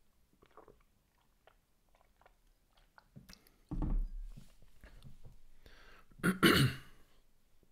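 A man coughing and clearing his throat: a short low burst about four seconds in and a louder one about six and a half seconds in, with faint small clicks before them.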